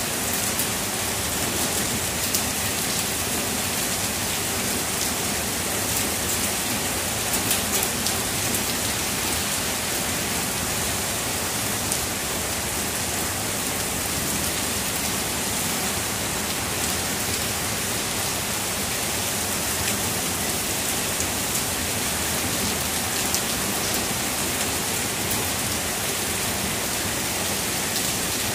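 Heavy rain falling steadily: a dense, even hiss flecked with small splats of nearby drops.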